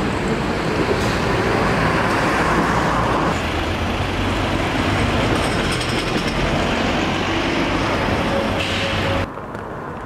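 City-centre street traffic: cars and a double-decker bus with their engines running, a steady low hum under the road noise. Near the end it drops suddenly to a quieter street hum.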